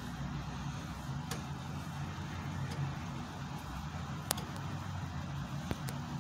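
A hand pressing and working over a chrome bathtub drain, giving a few sharp clicks, the loudest about four seconds in, over a steady low hum.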